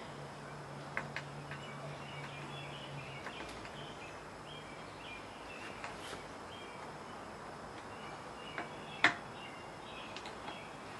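Faint bird chirps over steady outdoor background noise, with a low hum that stops about three seconds in. A few light metal clicks, then one sharp metal clank about nine seconds in as a pipe wrench is set onto the seized exhaust stud.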